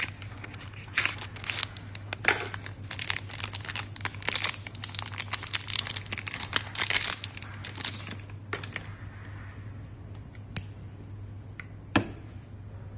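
Packaging of a disposable vape being torn open and crinkled by hand: a dense run of crackling and tearing for about eight seconds, then a few scattered ticks and one sharp click near the end, over a steady low hum.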